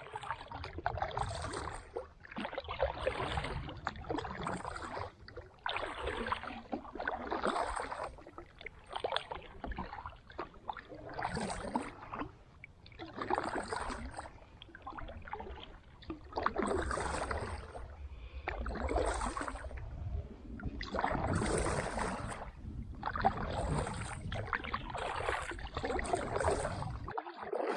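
Kayak paddle strokes: the blades dip and pull through the water in a steady rhythm, a swish of water about every one to two seconds.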